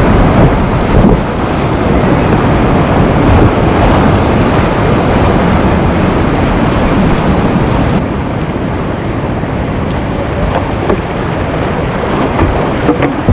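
Whitewater rapids rushing loudly and steadily, heard close up from a kayak. About eight seconds in, the sound drops a little and turns duller.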